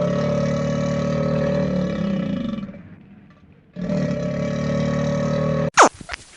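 A large wild animal roaring: two long, drawn-out roars, the first lasting about three seconds and the second about two, with a short pause between. Near the end the sound cuts abruptly to a few short, sharply falling calls.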